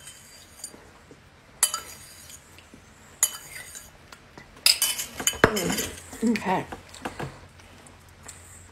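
A spoon scraping and clinking against the inside of a bowl as the last of the oatmeal is scooped out, three times at even spacing.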